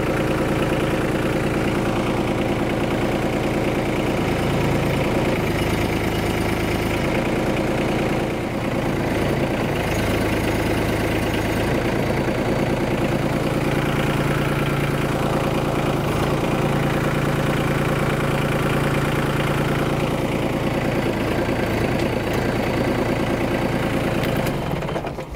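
Kubota B2261 compact tractor's three-cylinder diesel engine running steadily, its note shifting slightly a few times.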